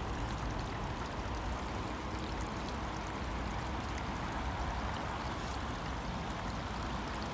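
Snowmelt water running and trickling steadily through a drainage ditch and culvert.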